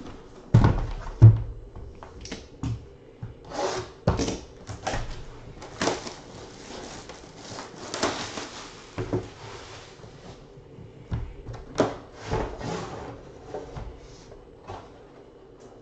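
Trading-card box packaging being unpacked by hand: two thumps about half a second and a second in, plastic wrap crinkling and rustling through the middle, and a few knocks of the hard black briefcase being handled later on.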